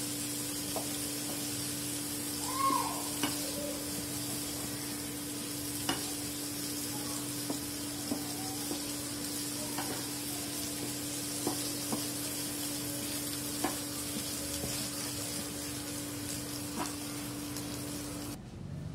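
Prawns sizzling steadily in shallow oil in a nonstick pan, with a spatula scraping and tapping the pan now and then as they are turned. A steady low hum runs underneath, and the sizzle cuts off suddenly near the end.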